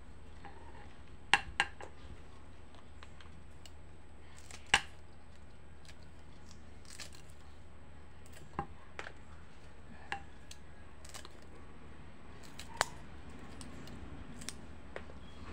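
Kitchen scissors snipping chili peppers into small rings: sharp, irregular snips, about eight in all, spaced one to four seconds apart, over a low steady hum.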